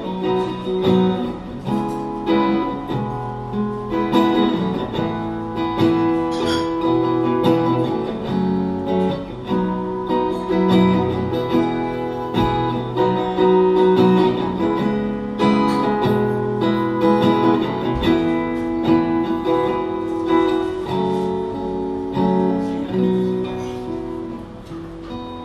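Acoustic guitar playing an instrumental passage of a slow song, chords ringing and changing every second or two, with no singing.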